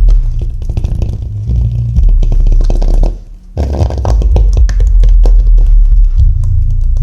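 Harman Kardon SUB-TS11 10-inch active subwoofer playing loud, deep bass notes of test music, with a crackling edge over the bass. The bass breaks off briefly about three seconds in, then comes back.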